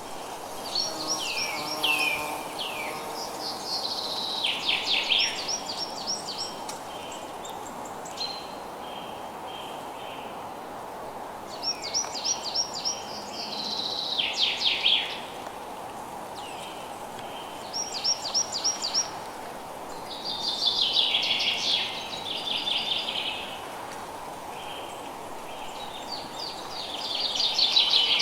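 Songbirds singing repeated phrases of quick falling notes every few seconds, loudest near the end, over a steady hiss of rain.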